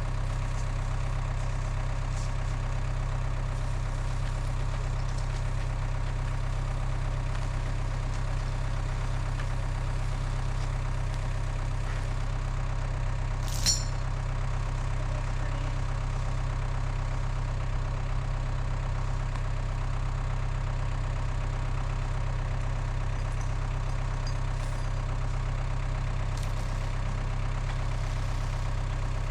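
An engine idling steadily with a deep, even hum, with one sharp click about fourteen seconds in.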